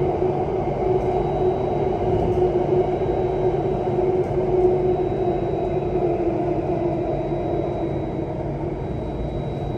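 SMRT C830 Alstom Metropolis metro train running at speed through a tunnel: steady wheel-on-rail rumble mixed with the even hum of its Alstom ONIX IGBT–VVVF traction motors, a little quieter near the end.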